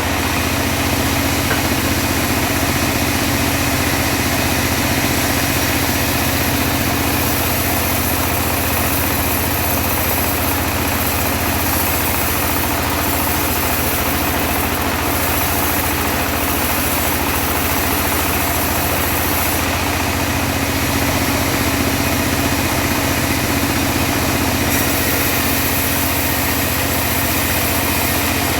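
Homemade engine-driven bandsaw mill running steadily, a constant low engine hum under a steady hiss, with no change in pace.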